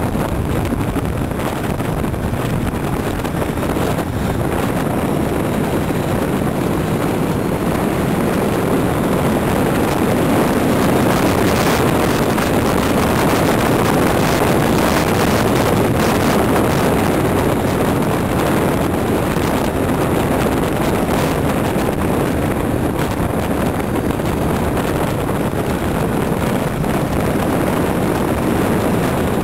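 Motorcycle ridden at speed, its engine running under heavy wind noise on a bike-mounted camera's microphone; the noise swells a little around the middle.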